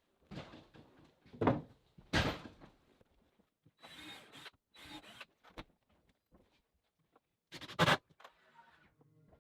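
Wooden boards being handled and fitted: several separate knocks, wood on wood, with a stretch of scraping and rubbing in the middle.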